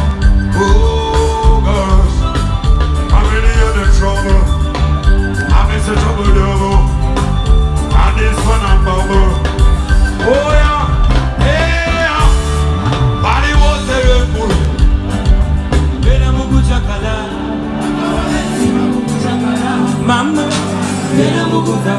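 Loud music with heavy bass, a beat and a singing voice. The bass and drums drop out about seventeen seconds in, leaving lighter accompaniment.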